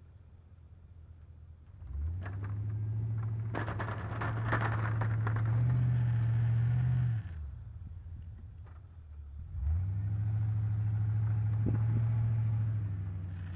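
Chevrolet Silverado 2500HD pickup engine revving under load as it pushes snow with a V-plow, in two pushes. The first runs from about two seconds in until a little after seven, the second from about ten seconds on. A hiss and scrape of snow shoved off the blade comes during the first push.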